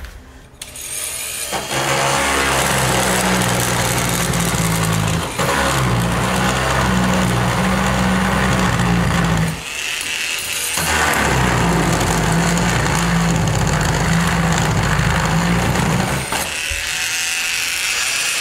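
Porter-Cable 3-amp oscillating multi-tool with a wood blade running and cutting into wood, a steady buzzing hum with rasping noise. It runs in two long stretches with a break of about a second and a half near the middle, and turns to a quieter sound near the end.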